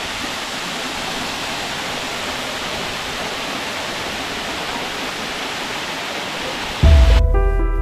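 Steady rush of a tall waterfall, water falling about 70 metres down a rock face. Near the end, music starts suddenly with a deep bass and held notes, louder than the water.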